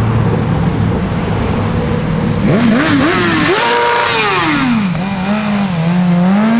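A vehicle engine running steadily, then revved from about two and a half seconds in: quick blips rising and falling in pitch, a higher held rev that drops away, and another rise near the end.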